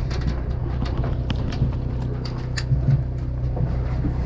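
Steady low drone of a fishing boat's machinery, with scattered sharp clicks and knocks at irregular intervals.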